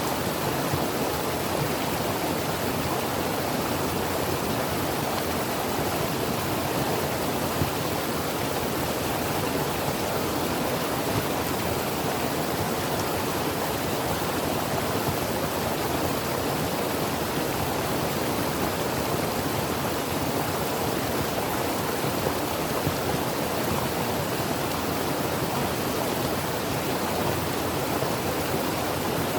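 Creek water flowing over rocks: a steady, even rushing with no pauses.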